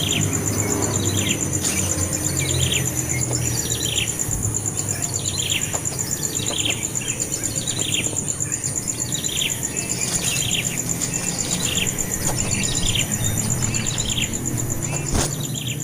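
A bird calling over and over: short chirps that fall in pitch, about one and a half a second, kept up steadily. Behind them runs a steady high, rapidly pulsing buzz.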